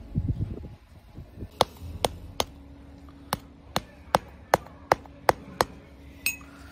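About a dozen sharp, hard taps from a small wooden stick on a sand-casting mould with a plastic mask set in it, falling two or three a second with a short pause partway. They follow a muffled thudding in the first second, as the sand is handled.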